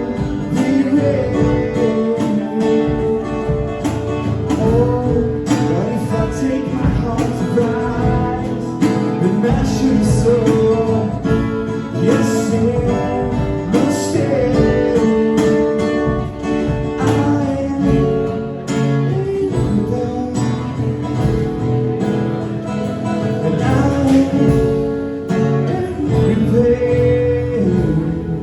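Live acoustic band music: strummed and picked acoustic guitars carrying the song steadily, with a melody line over them.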